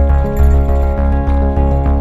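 Background music with a steady bass beat under sustained chords.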